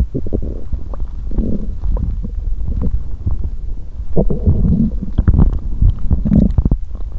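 A person's stomach gurgling and rumbling, heard up close at the belly. There are irregular bubbly gurgles and short pops, busiest and loudest from about four seconds in.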